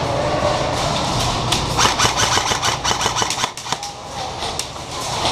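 Airsoft guns firing: a run of sharp, rapid clacks, densest about two seconds in, over a steady low hum.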